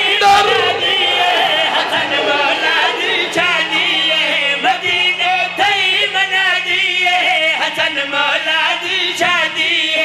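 Several men singing a devotional qaseeda together into microphones, the melody wavering and ornamented. A steady low hum runs underneath.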